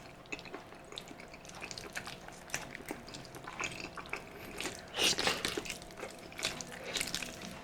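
Close-miked wet eating sounds: irregular small clicks, smacks and slurps of someone chewing and sipping balbacua beef stew, with a louder burst about five seconds in.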